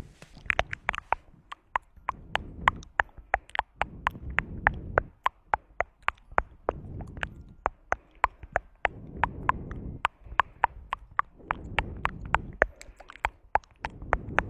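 Tongue clicking mouth sounds: a fast, irregular run of sharp clicks, several a second, with soft low mouth and breath noise between them.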